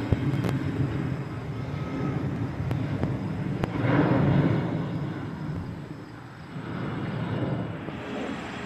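Jet airliner engine noise, a broad rushing rumble that swells to its loudest about four seconds in and then eases off.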